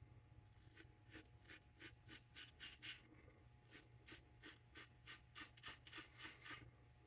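Double-edge safety razor, a Dorco plastic razor with a Bolzano blade, scraping through lathered stubble in quick short strokes, about two to three a second and more frequent toward the end. The blade is cutting the hair without tugging.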